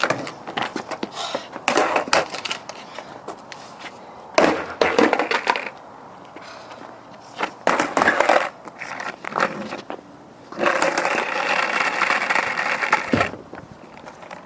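Wheels rolling with a steady noise, broken by sharp clattering knocks of tricks and landings. One long smooth roll near the end stops suddenly.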